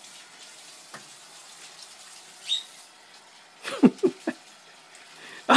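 Tap water running steadily into a sink, with a few short knocks and clatters in the last couple of seconds.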